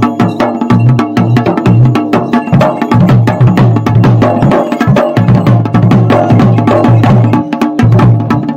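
Dhol and damau drums played together in a dense, driving rhythm: stick and hand strokes on the big double-headed dhol over sharp, rapid strikes on the smaller damau. This is the dhol-damau beat that accompanies a jagar.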